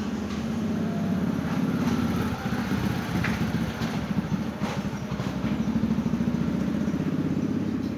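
An engine running steadily with a rapid low pulsing, rising and falling a little in level.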